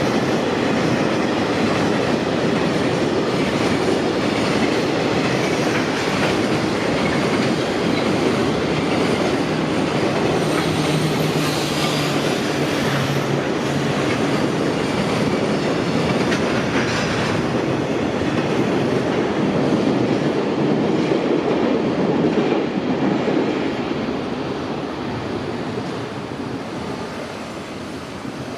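A long freight train hauled by an EF210 electric locomotive rolling past at a level crossing, its wagons' wheels clattering steadily over the rail joints. The noise fades away over the last few seconds as the end of the train passes.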